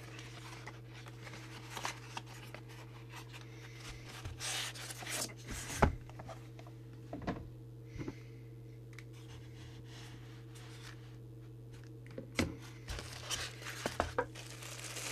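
A cardboard box being opened and its packaging handled: scattered rustles, scrapes and small clicks, heaviest just before the middle and again near the end. A steady low hum runs underneath.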